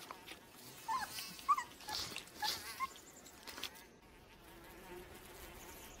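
Wolves feeding on meat, giving a string of short high squeaks with a few clicks of tearing and chewing for the first three and a half seconds. After that there is only a faint steady buzz.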